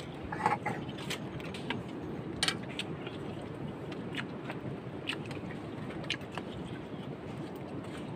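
Metal spoon clinking and scraping against a metal plate of rice, scattered sharp clicks about a second apart, with chewing, over a steady background noise.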